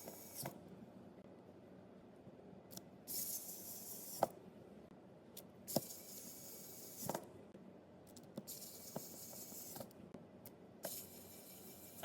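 Faint small clicks and snaps of smartphone parts being fitted, three sharper ones in the middle, between several short hissy bursts lasting a second or two each.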